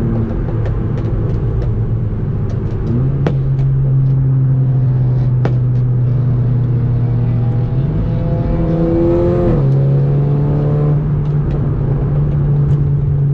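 Car engine and road noise heard from inside the cabin at highway speed. The engine note steps up about three seconds in, rises as the car accelerates from about eight seconds, then drops sharply near the ten-second mark as it shifts up.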